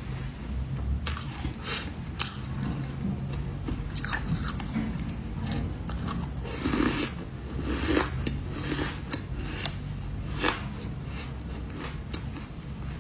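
Someone biting into ice and crunching it, with sharp cracks at irregular intervals throughout.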